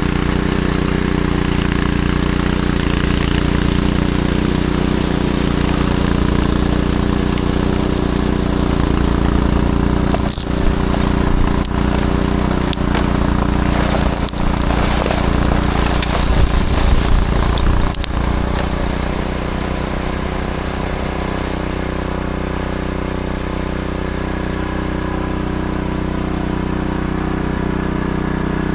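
Snowblower's small petrol engine running steadily, with a rougher, uneven stretch in the middle.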